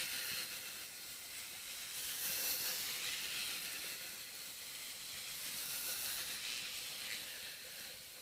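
Faint, steady hiss of outdoor background noise, with no distinct sounds standing out.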